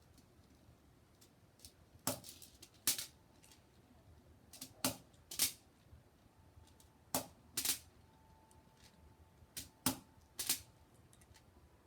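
Crosman SNR 357 CO2 air revolver being fired: four sharp reports a couple of seconds apart, each paired with a second sharp click about half a second from it.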